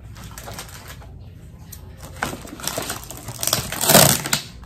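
Rustling and crinkling of grocery packaging and bags being rummaged through by hand, quiet at first and loudest about four seconds in.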